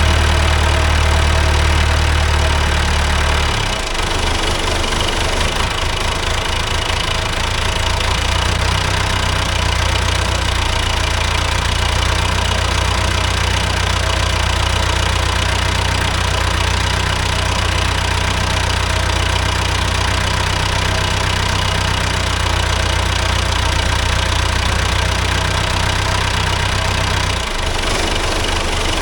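Caterpillar 426 backhoe's Perkins diesel engine idling steadily on fresh oil and a new filter. Its low running note shifts about four seconds in and again near the end.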